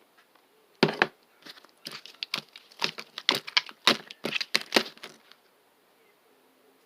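Slime being squeezed and stretched by hand, giving a run of sharp crackling pops and clicks from about a second in that stops about five seconds in.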